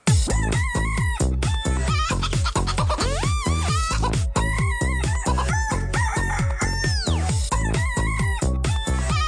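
Electronic dance music with a steady heavy beat and sampled chicken clucks and rooster crows gliding up and down in pitch over it.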